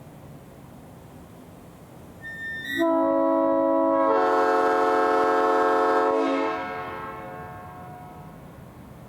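3D-printed replica of a Nathan Airchime P5 five-chime train horn, fitted with a 370 Hz bell so that it plays an A major 6th chord, sounded once on air for about three and a half seconds. A thin high tone comes just before the chord, which fills out about a second in and then fades over about a second when the air is cut. The horn is still slightly out of tune, with its #4 bell sharp and #5 bell flat.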